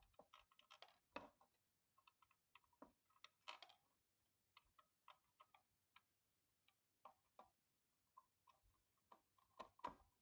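Faint, irregular small clicks and ticks of a screwdriver driving a screw into a plastic battery-charger case, with a slightly louder cluster near the end.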